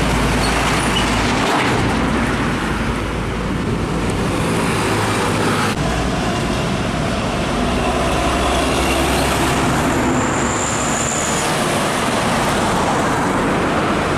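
Heavy diesel trucks, Hino 500s among them, driving past close by on a busy highway: engines running and tyres rolling over a steady bed of traffic noise. The sound changes abruptly about 1.5 and 6 seconds in as one truck gives way to the next.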